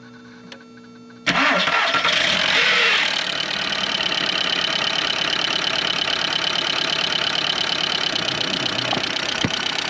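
Audi A2's 1.4-litre four-cylinder petrol engine starting about a second in, running up briefly, then settling to a steady idle. It idles with a loud clatter that new hydraulic lifters and a new timing belt have not cured; the owner suspects piston slap.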